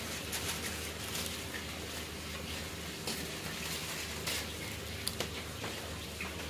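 Water spinach sizzling and crackling in a hot pan as it is stir-fried, with scattered sharp pops over a steady hiss.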